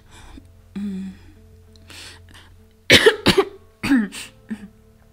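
A person coughing and clearing the throat, a few sharp coughs about three seconds in, over soft background music with steady held notes.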